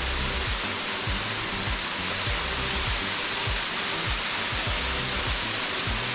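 Background music with a steady beat over a loud, steady rush of falling water from the waterfall, with light rain.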